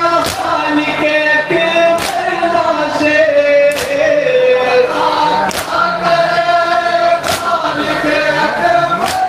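A group of men chanting a nauha (mourning elegy) in unison through a PA system. A sharp slap of massed chest-beating (matam) lands in time with it about every second and three quarters, six strikes in all.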